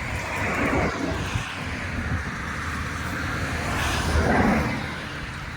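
Road vehicles passing by, two swells of tyre and engine noise, the second louder about four seconds in, over a low steady rumble.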